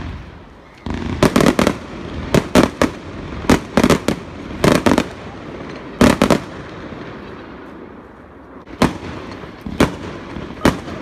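Fireworks going off: sharp bangs in quick clusters of two to four, about one cluster a second, thinning to single bangs near the end.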